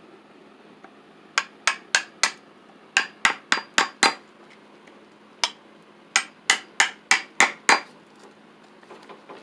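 A hammer tapping at wood to hollow out the side of a hole in a wooden stump seat: quick, sharp blows about three or four a second, in four bursts of one to six strikes with short pauses between.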